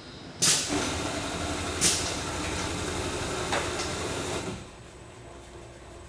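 Biesse Comil Performer TP automatic case clamp running a cycle. A sharp burst about half a second in starts roughly four seconds of machine noise, with another sharp burst near two seconds and a lighter one later, then the noise stops.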